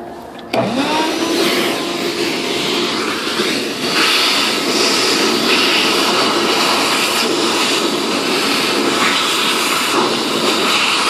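Shop vacuum switched on about half a second in, its motor spinning up with a rising whine, then running steadily as the hose nozzle sucks cutting dust out of a model glider's fuselage. The suction noise gets louder about four seconds in.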